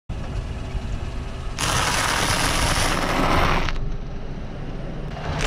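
A car tyre rolls over blocks of dry instant ramen noodles and crushes them with a dense crackling crunch. The crunch starts about one and a half seconds in and stops abruptly about two seconds later, over a low rumble from the car.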